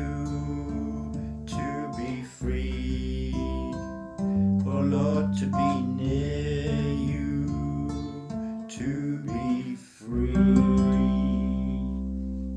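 Ukulele strumming chords, each change ringing on over sustained low bass notes, as the song's instrumental close; the last chord fades near the end.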